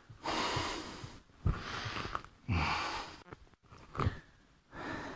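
A man breathing heavily, about five noisy breaths roughly a second apart, through a stretch just after hard kicking drills.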